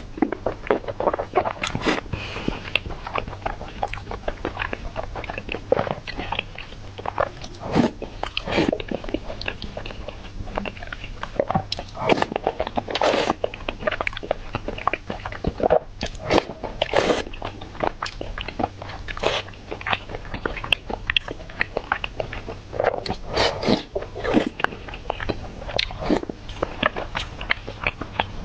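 A person biting and chewing food close to the microphone, with irregular, closely spaced chewing and mouth sounds throughout.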